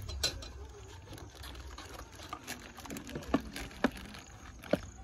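Plastic plates and serving utensils knocking and clattering as food is dished out from a plastic basin, with a few sharp knocks in the second half, over a low rumble.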